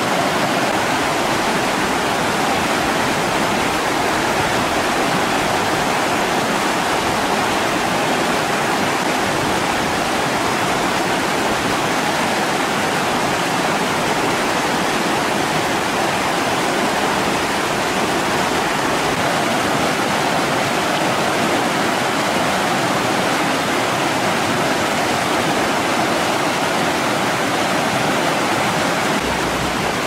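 Mountain river rushing over rapids: a loud, steady rush of water that does not let up.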